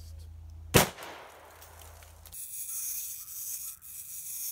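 A single 12-gauge shotgun shot about a second in, its echo dying away over the following second. After that a steady high hiss comes in.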